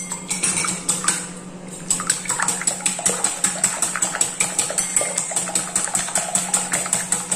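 Raw eggs being beaten by hand in a ceramic bowl: a few scattered taps at first, then from about two seconds in a quick, even rhythm of the utensil clicking against the bowl, about four strokes a second, with the liquid egg sloshing.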